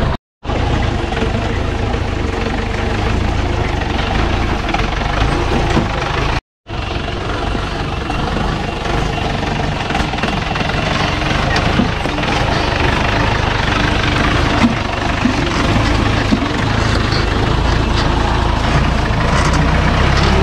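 Off-road jeep engine running steadily. The sound cuts to silence briefly twice, just after the start and about six and a half seconds in.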